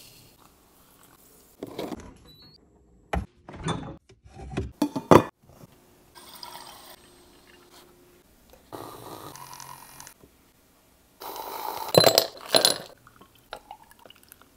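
A string of short kitchen sounds from making iced coffee: coffee grounds poured into a cold-brew maker, glass jars and mugs clinking as they are handled, and cold-brew coffee poured over ice in glass mugs. The sharpest clinks come about five seconds in and again near twelve seconds.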